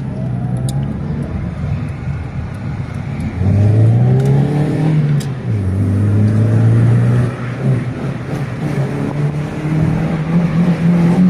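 Car engine under hard acceleration, its note climbing and then dropping back as it shifts, with the loudest pulls about three and a half and six seconds in.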